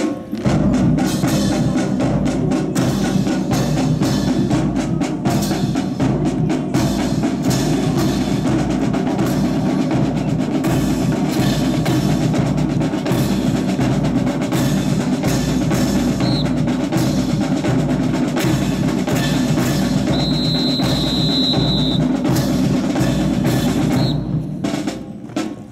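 Marching drum cadence of snare-drum rolls over bass drum, played without a break and dropping away shortly before the end. A high steady tone sounds for about two seconds about three-quarters of the way through.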